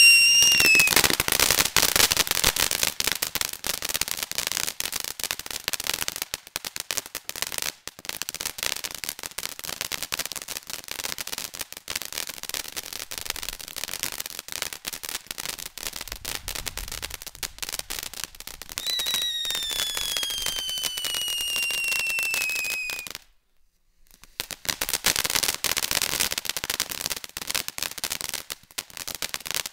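Black Cat "Ratta-tat-tat" ground fountain firework: a whistle falling in pitch that stops about a second in, then a long, dense run of rapid crackling pops. About 19 seconds in, a second whistle slides down in pitch for about four seconds and cuts off suddenly. After a second of silence the crackling pops resume.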